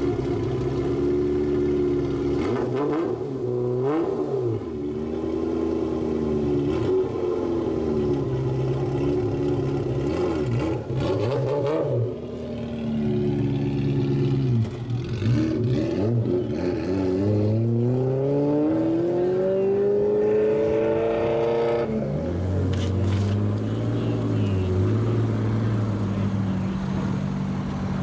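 A Ferrari 348's V8 is revved in repeated rising and falling blips as the car pulls away slowly. About three-quarters of the way in, a second car's engine takes over with a lower, steadier note.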